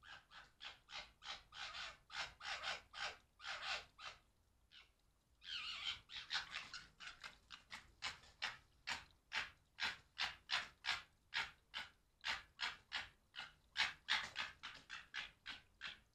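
Red foxes gekkering: a fast run of short, harsh, rasping calls, about two to three a second, that stops briefly about four seconds in and then starts again. It is the chattering of foxes squabbling or playing roughly.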